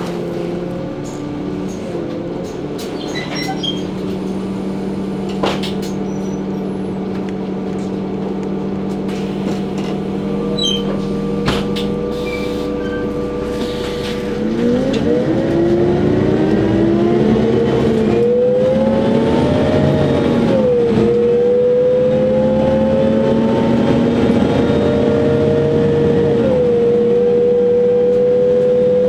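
Mercedes-Benz Citaro CNG city bus engine heard from inside the cabin, running at a steady low pitch, with two sharp knocks in the first half. About halfway the bus accelerates: it gets louder and the engine note rises, dropping back three times as the automatic gearbox shifts up.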